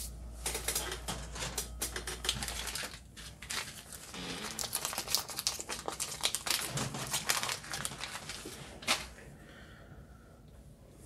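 Hands rummaging through loose plastic zip ties: a run of quick clicks, rattles and crinkling, with one sharper click near the end before it dies down.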